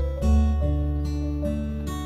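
Background music: acoustic guitar strumming sustained chords that change every second or so.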